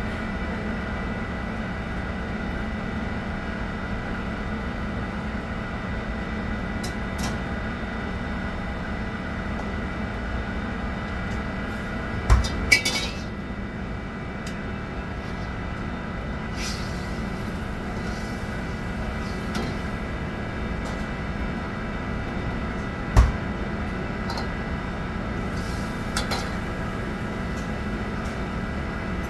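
Commercial kitchen at work: a steady hum of kitchen equipment with occasional clinks of pots and utensils. Two sharp metal clanks about twelve seconds in, the second one ringing, and another knock a little after twenty-three seconds.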